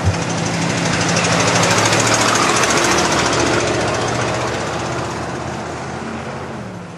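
An SUV driving past on a snowy road: engine and tyre noise swell to a peak two to three seconds in, then fade as it moves away, with a fast even rattle at the loudest point. A short low thump sounds right at the start.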